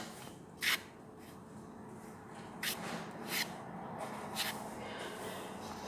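Hands dredging chicken pieces in flour in a metal basin: soft rustling and rubbing of the powdery coating, with a few short scuffs as the fingers press and turn the pieces.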